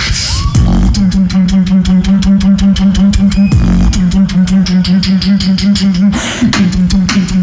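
Solo human beatboxing into a stage microphone: very fast vocal percussion, a rapid even run of mouth clicks and hi-hat sounds over a hummed low bass note that pulses on and off. A short falling swoop comes about halfway, and a breathy hiss near the end.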